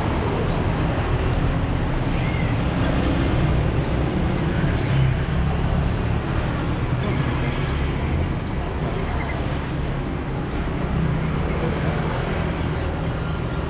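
Steady road traffic rumble with many small caged songbirds giving short, high chirps over it.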